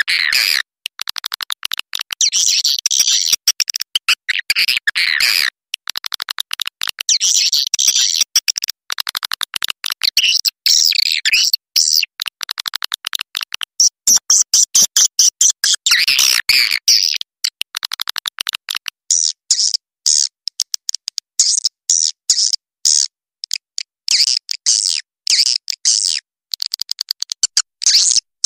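Edible-nest swiftlets calling: rapid, buzzy, clicking trills in bursts of a second or two with short breaks between. This is the roosting lure call ('panggil inap') played to draw swiftlets in to roost in a swiftlet house.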